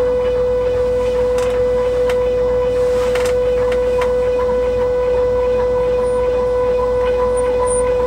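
Z-axis stepper motors of a Folgertech 2020 Prusa i3 3D printer making a slow homing move, giving a steady whine at one pitch with a few faint ticks. The Z axis has been slowed right down so the new steppers stop skipping steps.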